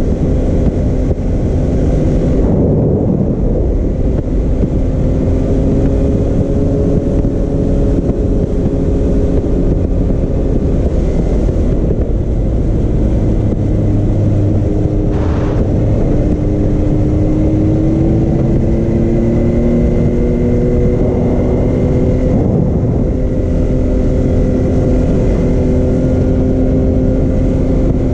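Can-Am Maverick X3 Turbo RR side-by-side driving along a gravel road. Its turbocharged three-cylinder engine runs at a steady cruise, its pitch drifting slowly up and down with the throttle, over a constant low rumble from the moving vehicle.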